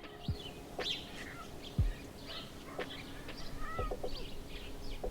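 Small birds chirping and twittering throughout, with a few soft low thuds about a second apart.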